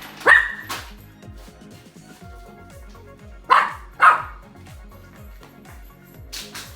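Toy poodle barking: a few short, sharp barks, one near the start and two close together about halfway through, excited over its food at feeding time. Background music plays underneath.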